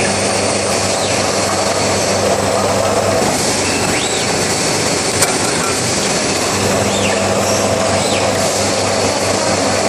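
Loud, steady running noise of a metal-cutting transfer machine, with a constant hum underneath. The six-axis Fanuc robot arm's servo motors give short whines that rise and fall, about five times, as it moves parts in and out. A single sharp click comes about halfway through.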